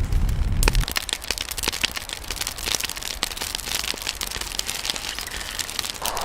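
Fire crackling sound effect: a steady stream of irregular pops and snaps over a hissing haze, with a low rumble that stops about a second in.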